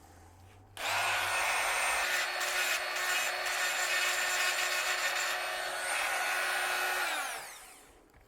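Proxxon IBS/E rotary tool with a diamond grinding burr, switched on about a second in and running steadily at high speed, then switched off near the end, its whine falling in pitch as it winds down.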